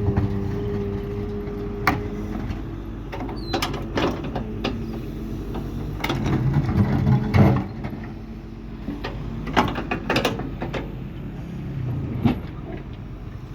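Doosan DX140 excavator's diesel engine running steadily, with a series of sharp metallic clanks and knocks from the machine working, the loudest about seven seconds in.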